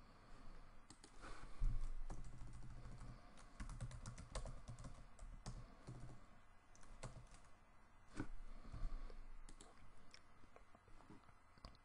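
Typing on a computer keyboard: faint, irregular key clicks, some in quick runs with short pauses between.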